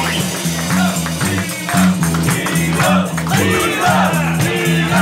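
Live band playing an extended jam, with a repeating bass line under drums and percussion.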